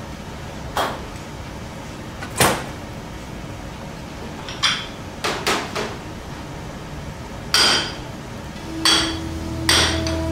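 Glass cups and small metal moulds being set down and knocked on a stainless steel worktop: about nine sharp clacks and clinks at uneven intervals, several with a short metallic ring. Background music comes in near the end.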